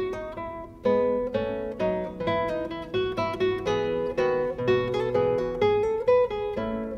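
Background music: an acoustic guitar picking a melody, several plucked notes a second, each ringing out and fading.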